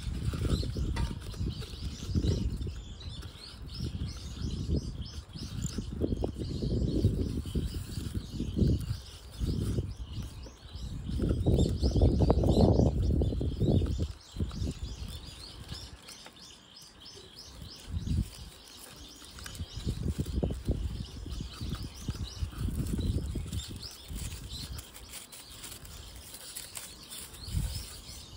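Hands pressing a pine's roots into a plastic pot and working raffia ties, heard as uneven bursts of low rustling and rubbing, loudest about halfway through. Birds chirp faintly in the background.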